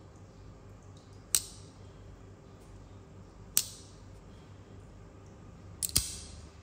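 Andrew Demko AD20i folding knife's blade snapping shut and open on its bearing pivot: sharp metallic clicks about two seconds apart. The last is a quick double click as the blade is flicked open and the Shark Lock engages.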